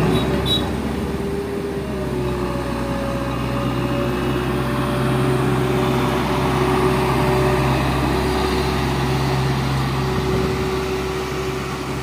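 Volvo DD90B double-drum asphalt roller's diesel engine running steadily with a low hum as the roller drives over fresh asphalt.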